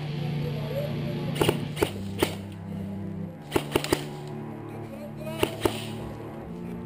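Background music with a steady low drone, cut by sharp snaps in small irregular groups (two or three at a time, about eight in all): airsoft guns firing.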